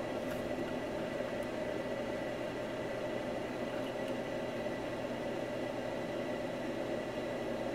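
Steady whir of a small electric fan, even and unchanging, with a faint high whine and a few faint light clicks.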